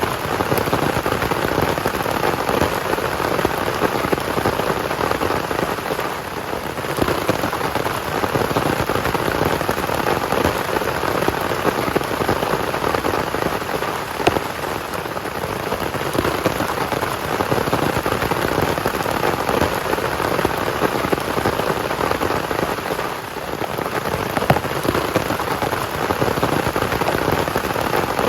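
Heavy rain falling steadily, a dense hiss of many drops that eases briefly twice, about six seconds in and again near the twenty-three-second mark.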